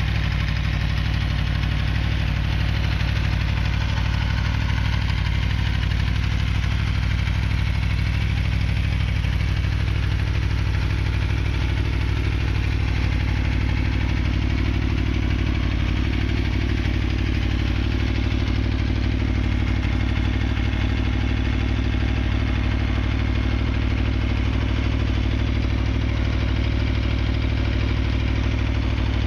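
Aprilia Tuono V4R's V4 engine idling steadily, with no revs.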